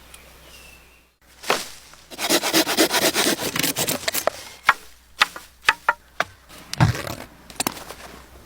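Handling noises: about a second in, a sharp crack, then a dense run of scraping and crackling for about two seconds, followed by scattered sharp cracks and knocks.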